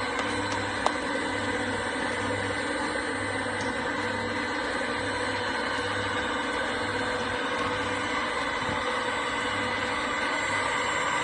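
Ribbon mixer running: a steady machine hum with a low throb about once a second. There is one sharp click about a second in.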